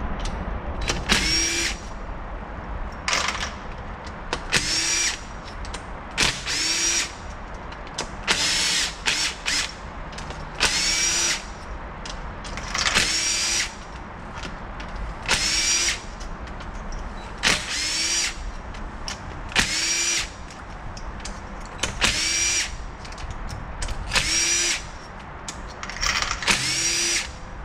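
Cordless drill/driver backing out the 7 mm hex bolts around a transmission valve body one after another: short bursts about every two seconds, each a brief whine that rises as the motor spins up.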